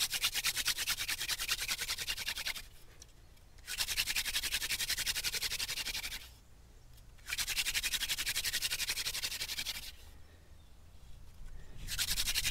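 Wooden hand-drill spindle spun hard between the palms into a smoking wooden hearth board, a rapid rhythmic wood-on-wood rubbing squeak. It comes in three long bouts and a fourth starting near the end, with pauses of about a second between them as the hands go back to the top of the spindle. The hearth is already smoking, and the spinning is building an ember.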